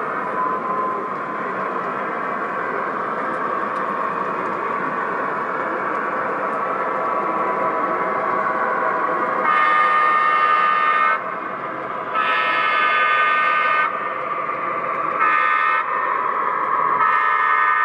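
An O-gauge model train running on the layout with its electronic sound system on: a steady rolling noise, then from about halfway the horn sounds four times, long, long, short, long, the grade-crossing signal.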